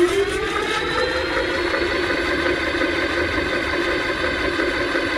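Geared e-bike hub motor spinning the raised wheel under throttle: a whine that rises over about the first second, then holds steady at speed. The phase wires are now in the right order (green, yellow, blue), so the motor drives through its gear.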